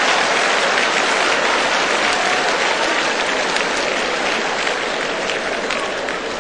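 Live audience applauding, the clapping slowly dying down.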